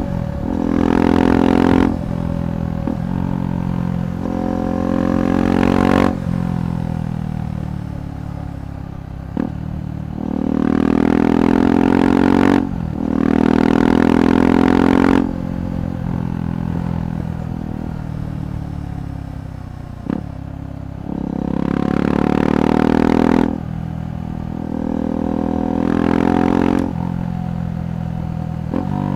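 KTM 390 Adventure's single-cylinder engine through a Red Rooster aftermarket exhaust, pulling hard several times with its pitch rising. Each pull ends abruptly at a throttle-off or gear change, and the engine runs lower and steadier between pulls.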